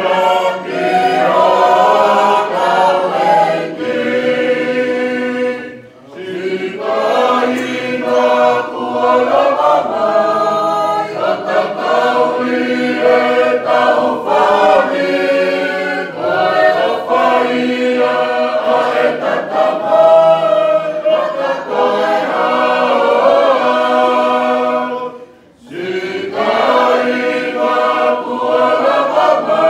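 A church choir of men's and women's voices singing a hymn in parts, with two short breaks between phrases, about six seconds in and again near the end.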